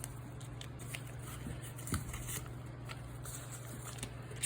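Paper rustling and crinkling in small scattered clicks as pieces of paper are handled, with a soft bump about two seconds in, over a steady low hum.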